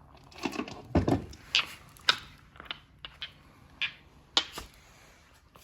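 Marbles rolling down a wooden zigzag marble run, clacking against the wood in a string of irregular clicks and knocks. The heaviest thump comes about a second in.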